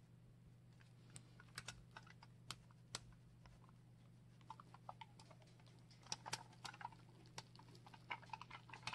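Faint scattered clicks and light crackles of aluminum foil and tacky paint as a dipped canvas is slowly worked up off a paint-covered foil sheet. The clicks come thicker in the second half, over a steady low hum.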